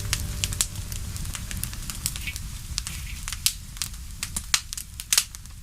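Wood campfire crackling, with irregular sharp pops over a low rumble of the flames.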